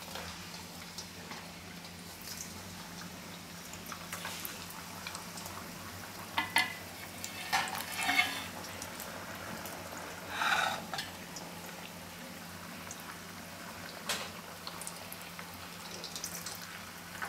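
Bajra-flour vadas deep-frying in hot oil in an iron kadai turned down to a low flame: a steady, fairly soft sizzle and bubbling, with a few brief louder sounds as more vadas go into the oil.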